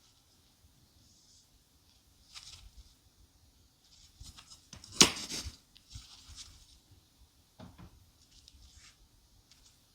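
Hands handling small hard objects: scattered soft rustles and clicks, with one sharp click about halfway through and a duller knock a little later.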